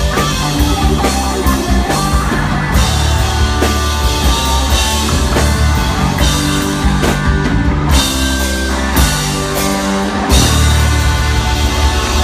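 A live rock band plays loudly, with distorted electric guitars over a driving drum kit, in an instrumental stretch with no singing.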